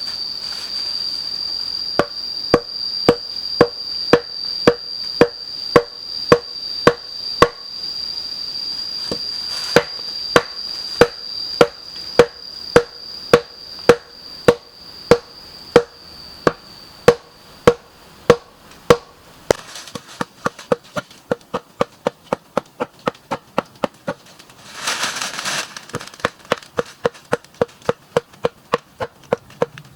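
Wood being chopped with a blade in steady, regular strokes about every two-thirds of a second, each stroke ringing briefly; the strokes come faster and lighter in the last third. A steady high-pitched buzz runs under the first half and stops.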